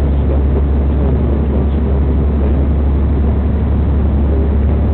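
Steady low rumble of a TransPennine Express diesel train running at speed, heard from inside the carriage: engine drone and wheels on the track under an even hiss of running noise.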